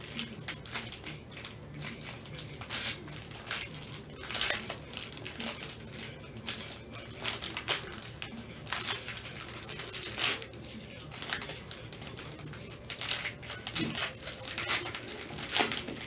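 Plastic shrink-wrap crinkling and rustling in irregular bursts as a sealed trading-card box is unwrapped and handled.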